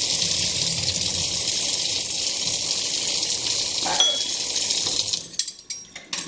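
Kitchen faucet running a steady stream into a stainless steel sink while a metal tablespoon is held under it. The water shuts off about five seconds in, followed by a few light clinks of metal in the sink.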